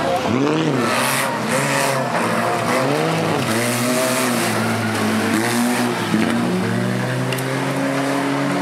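Banger racing cars' engines revving hard and easing off in turn as they tow caravans around the track, several engines overlapping with pitches rising and falling, over a steady rush of tyre and track noise.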